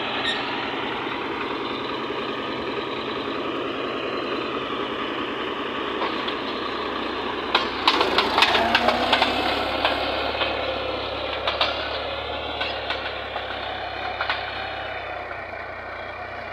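Farm tractor's diesel engine running steadily as it pulls a spring-tine cultivator through dry soil, with a burst of sharp clanks about eight seconds in.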